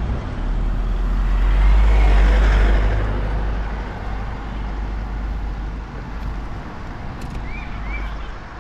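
Car driving: a steady low engine and road rumble with tyre noise, growing louder about two seconds in and then easing off.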